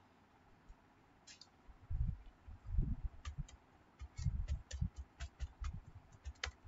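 Computer keyboard being typed on: a quick, uneven run of key clicks with dull knocks under them, starting about three seconds in.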